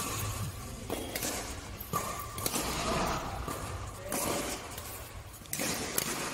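Badminton rackets striking a shuttlecock during a doubles rally: sharp hits every second or two, ringing in a large sports hall.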